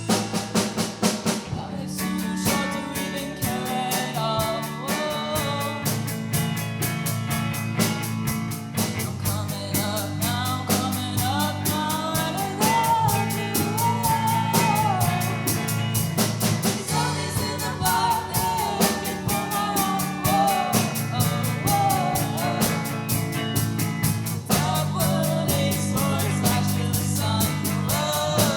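Rock band playing a song: drum kit keeping a steady beat under guitar, with a lead vocal singing the melody.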